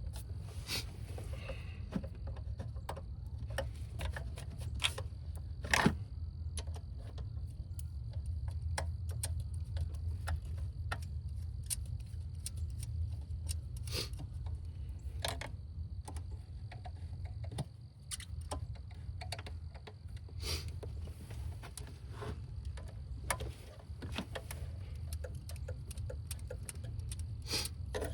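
Irregular light metallic clicks and clinks of a hand tool turning bolts down in a car's engine bay, over a steady low hum.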